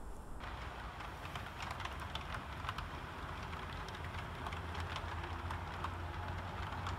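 OO gauge model train of InterCity Mark 3 coaches running on track: a steady rolling hiss of metal wheels on rail, broken by many light clicks, over a low steady hum. The rolling sound sets in about half a second in.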